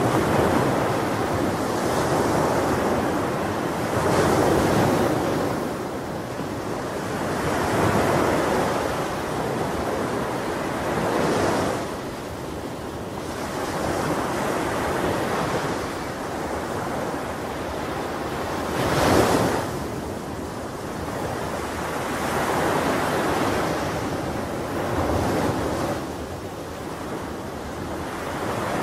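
Ocean surf: waves breaking and washing in, the rushing noise swelling and fading every few seconds, with one stronger surge about two-thirds of the way through.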